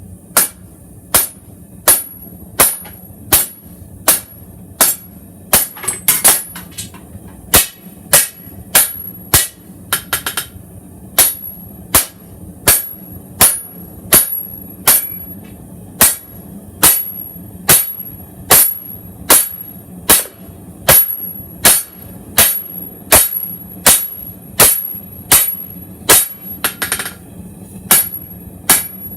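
Forging hammer striking hot W2 steel on an anvil in a steady rhythm of about one and a half blows a second, each blow with a short high ring, drawing out the point of a chef's knife blade. A steady low hum runs underneath.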